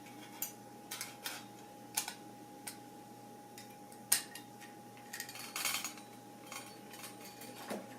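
Irregular light clicks and clinks of the metal parts of a beer can chicken stand being handled and snapped together, over a faint steady hum.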